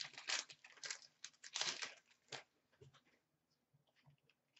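Hockey card pack wrapper being torn open and crinkled by hand: a quick run of rustling, tearing noises for about the first two seconds, then only a few faint ticks as the cards are handled.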